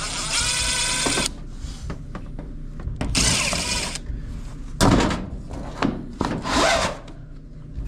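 Cordless drill/driver spinning in short runs, three times, backing out screws on a clothes dryer's vent tube and panels, with a sharp knock in between.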